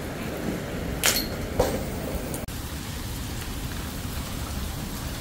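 Hail falling hard, a steady hiss of hailstones striking the ground, with two sharp, louder hits about a second and a second and a half in.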